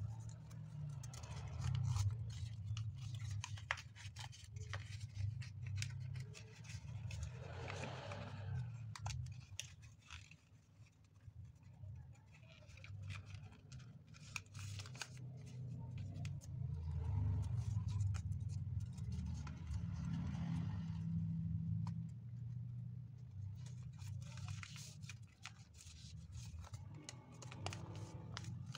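Origami paper being folded and creased by hand: crisp crackles, rustles and rubbing as fingers press and slide along the folds, with irregular small clicks. A steady low rumble runs underneath.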